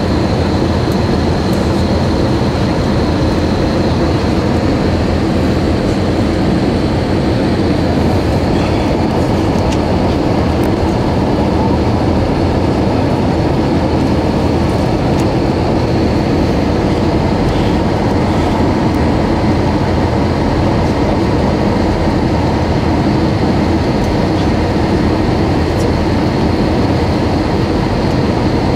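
Jet airliner cabin noise heard from inside the cabin: the engines and the air rushing past the fuselage, a steady loud rushing sound with a deep rumble underneath.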